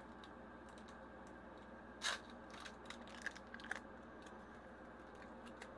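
Foil Pokémon booster pack wrapper crinkling and being pulled at by hand while it resists opening: one short sharp crinkle about two seconds in, then a few small clicks and rustles, over a faint steady hum.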